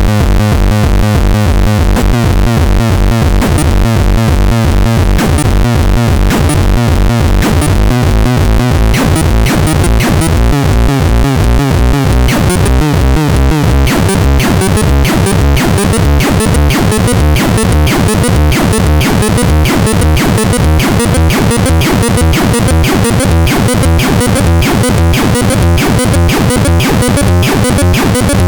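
Electronic synthesizer playing a dense, steadily pulsing sequence, about four low pulses a second under stacked tones. Bright high clicks join in about a third of the way through and grow thicker.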